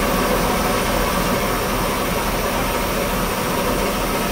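Two-cylinder steam engine of a steam yacht running steadily: a continuous hiss over a low mechanical hum, with no distinct beats.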